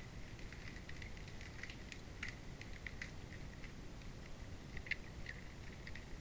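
Under-ice hydrophone recording: a steady low underwater rumble with many small, irregular ticks and clicks, the sharpest about five seconds in.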